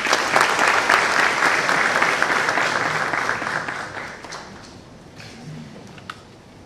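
Audience applauding, loudest at the start and dying away after about four seconds. A single sharp click follows near the end.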